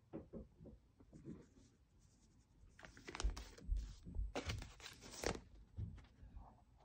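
Photo prints and papers being handled and shuffled: scattered soft rustles and knocks, sparse at first and busier from about three seconds in.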